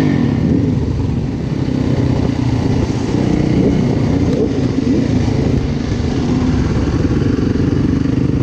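Yamaha dirt bike engine running at street speed, its revs rising and falling, with other quad and motorbike engines close by.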